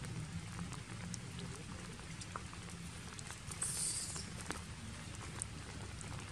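Faint outdoor background in trees: a steady low hum with scattered light clicks and rustles, and a brief high-pitched hiss a little past the middle.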